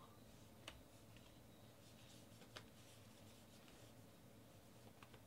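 Near silence, broken by a few faint ticks of baseball cards being flipped through by hand.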